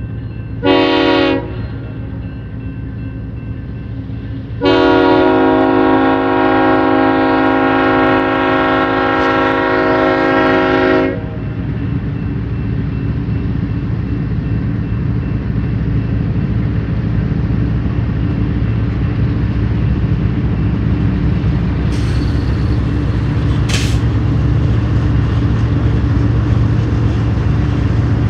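Freight-locomotive multi-chime air horn sounding one short blast, then one long blast of about six seconds. The lead BNSF diesel locomotives then run past, their engine noise growing slowly louder, with two sharp clicks about two seconds apart near the end.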